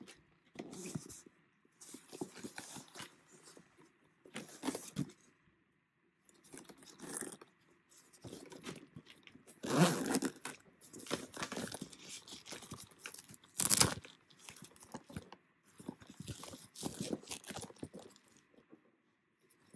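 Hands handling a soft padded zippered camera pouch: irregular rustling and scraping of the fabric, and its zipper being pulled open in short noisy runs, the loudest about halfway through and again a few seconds later.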